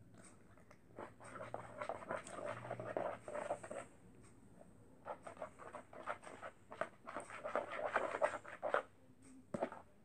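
Freshly activated fluffy slime (glue and shaving cream) being stirred in a bowl, squelching and crackling in two spells of a few seconds each, with a short pause between them; the slime is starting to come together.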